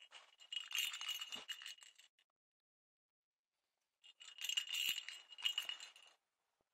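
Jingle-bell cat-toy ball, a plastic ball with a bell inside, shaken by hand so its bell jingles and rattles. It comes in two bursts, the second starting about four seconds in, with a silent gap between.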